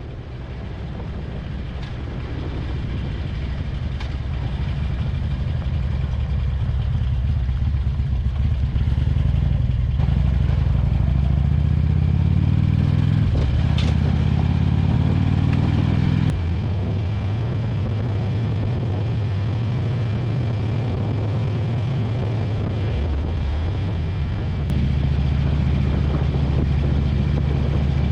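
Harley-Davidson Road King's V-twin engine running under way, growing louder over the first several seconds. Its note climbs for a few seconds and drops sharply at a gear change about sixteen seconds in, then steps up again near the end.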